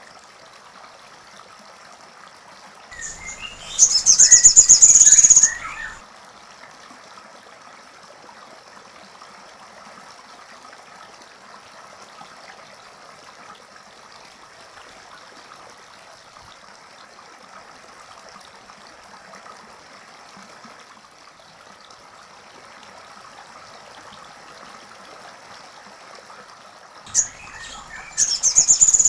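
A sogon songbird singing two loud, rapid high trilling phrases, one about three seconds in and another near the end: woodpecker-style material the young bird has picked up from a master recording. A steady faint hiss of running water lies underneath.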